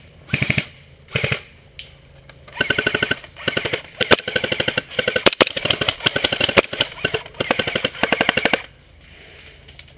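Airsoft rifles firing full-auto in rapid bursts: a few short bursts at first, then long strings of fast clicking shots through the middle, stopping near the end.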